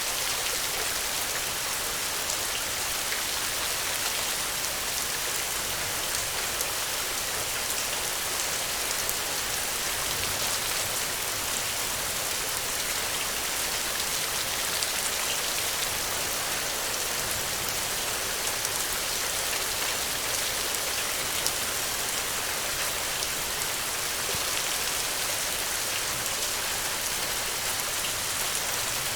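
Steady rain falling, a dense even hiss of many drops with fine scattered pattering on the ground.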